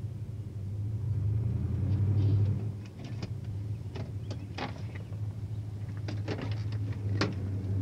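Chevrolet Camaro's engine running low and steady as the car is eased up onto ramps, swelling briefly about a second in. Scattered sharp clicks and ticks sound over it.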